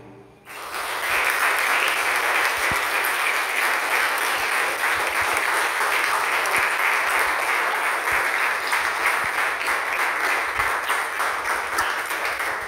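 Audience applauding, beginning about half a second in and carrying on steadily.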